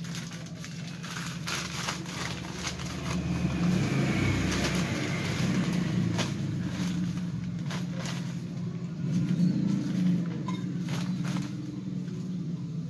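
Black plastic polybags rustling and crinkling as they are handled, with several sharper crackles, over a steady low engine-like hum.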